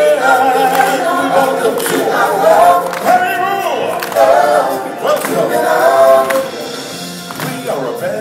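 Several singers performing a song together in a choir-like vocal over backing music, live in a large theatre.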